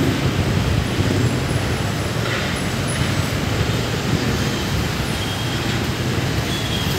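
Steady road traffic noise from a city street.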